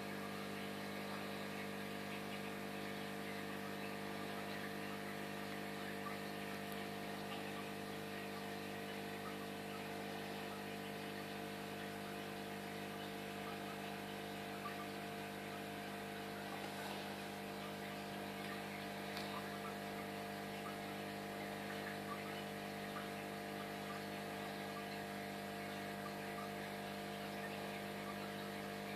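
Aquarium air pump and filter humming steadily, with a many-pitched electrical drone under a faint even hiss of rising bubbles.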